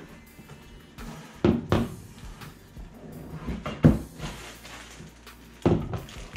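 Cardboard packaging being handled and snow blower wheels set down on a wooden floor: a series of knocks and thuds, the loudest about four seconds in, with background music underneath.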